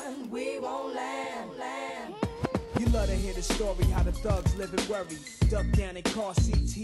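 Background hip hop music: a rapped vocal over a beat, with a deep bass and drum hits coming in about two seconds in.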